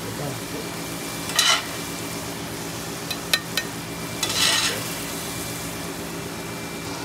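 Shrimp sizzling in butter in a frying pan. Louder stirring about a second and a half in and again near four and a half seconds, with a few sharp utensil clicks on the pan in between.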